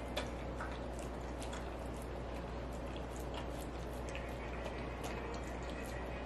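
Border collie eating from a bowl: her chewing makes irregular sharp clicks, a few a second.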